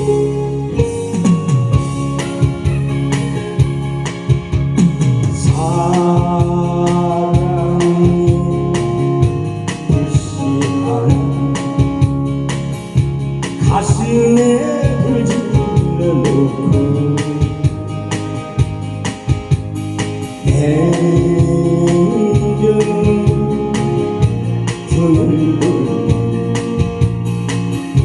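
Instrumental trot backing music with a steady drum beat, sustained organ-like keyboard chords and a gliding lead melody.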